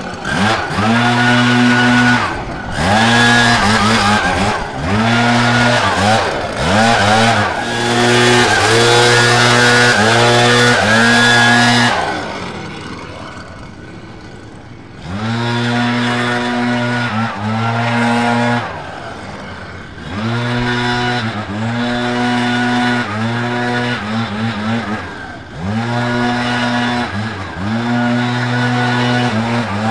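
A backpack leaf blower's engine running at high throttle, its pitch dipping and climbing again every second or two as the throttle is eased and opened. About twelve seconds in it drops to a low idle for about three seconds, then revs back up.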